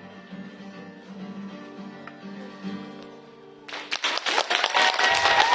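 Instrumental ending of a pop song's accompaniment, with acoustic guitar prominent and no singing. A little over halfway through, an audience breaks into applause, which grows louder.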